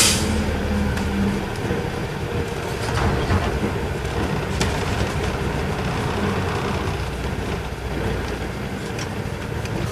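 Cabin sound of an Isuzu Erga Mio bus's inline-six diesel engine running at low speed as the bus pulls slowly into a stop: a steady low rumble. There is a brief burst of hiss at the very start and a few faint ticks.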